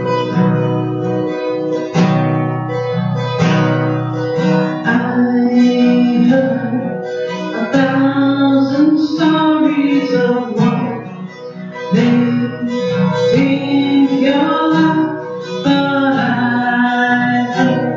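Acoustic guitar strummed in a steady rhythm, with a voice singing along from about five seconds in.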